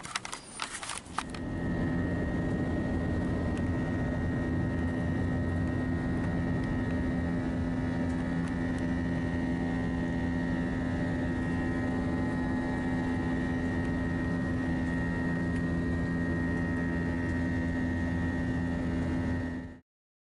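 Steady drone of an airliner's engines and air heard inside the cabin, a constant low hum with a thin high whine over it. It sets in after a few clicks about a second and a half in and cuts off suddenly near the end.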